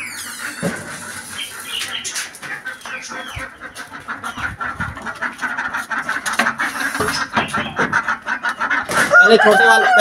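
Chickens clucking amid a busy chatter of small birds, then a rooster crowing about nine seconds in: one long held call that drops in pitch at the end.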